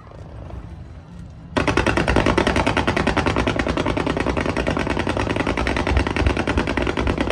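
Fireworks going off in a rapid run of sharp crackling bangs, about ten a second, that starts suddenly about a second and a half in and keeps on steadily.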